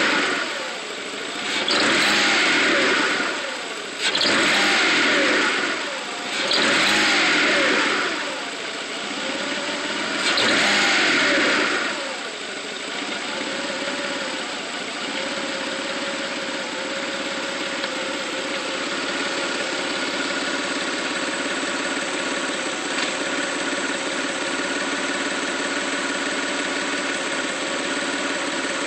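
1995 Mitsubishi 3000GT's V6 engine revved five times in quick blips over about twelve seconds, each rev rising and falling back, then settling to a steady idle. The owner hears the engine stumble as the gas is given before it revs up, with something like a misfire, and a rough idle, cause unknown.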